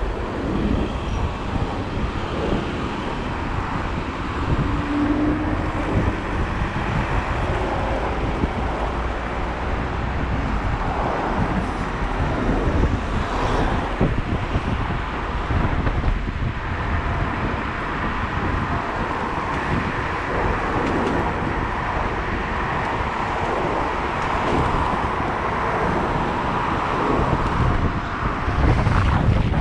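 Steady road and traffic noise, with wind rumbling on the microphone of a rider moving along on an electric unicycle.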